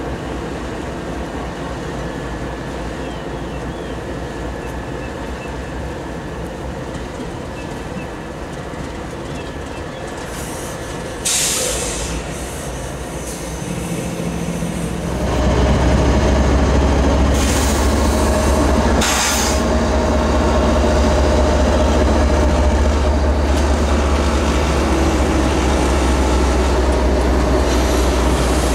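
Diesel-electric locomotives running in a rail yard: a steady low engine rumble that gets louder about halfway through as a locomotive comes close, with a steady whine over it. Two short hisses are heard, one before and one after the rise.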